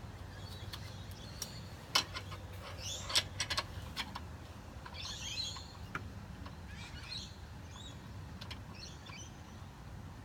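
A small bird chirping in short high twittering phrases, about one every two seconds. A few sharp clicks or taps come around the second and third seconds, over a low steady hum.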